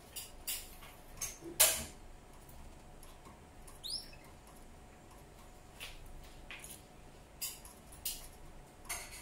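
Gouldian finch's soft song: scattered short hisses and clicks, with one rising chirp about four seconds in.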